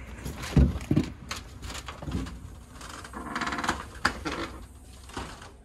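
Front door being unlatched and pushed open: a series of clicks and knocks from the knob and latch, with a louder thump about half a second in and a rattle around three seconds in.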